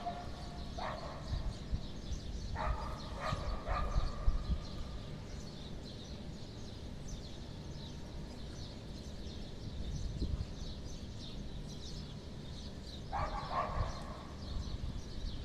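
A dog barking in short bursts: a single bark about a second in, a quick run of barks around three seconds, and another near the end, over a low steady rumble and faint high chirps.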